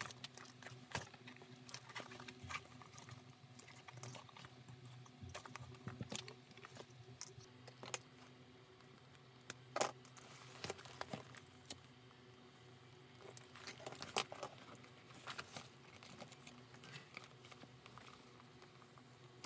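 Faint scattered clicks and rustles of hands handling a leather sling bag, its plastic strap buckle and its zipper, over a low steady hum.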